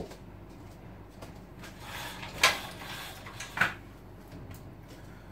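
Someone handling things off-camera in a small room: rustling, with two sharp knocks about two and a half and three and a half seconds in, the first the louder.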